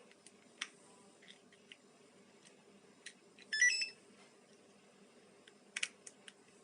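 Car alarm key fob's piezo speaker playing a short stepped beeping melody, about half a second long, around the middle. A few sharp clicks come before and after it.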